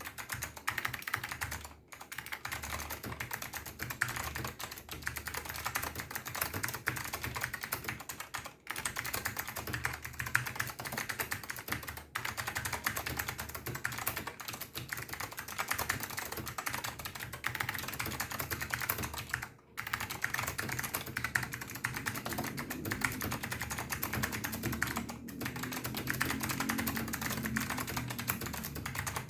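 Steady fast typing on an NTC KB-6251EA keyboard with Alps SKCM White switches, wax-modded to cure their scratchiness, in a roomy plastic case. It is a dense run of key clicks that breaks off briefly every few seconds.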